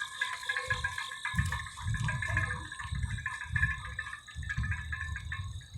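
American pit bull terrier panting after running hill work beside a bicycle, soft breaths recurring about twice a second.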